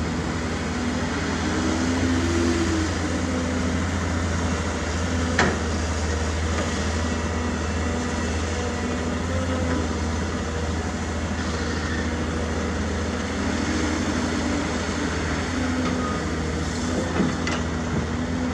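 Heavy diesel machinery running steadily with a deep engine drone, its pitch lifting slightly a couple of times as if under load, and two sharp knocks, one about five seconds in and one near the end.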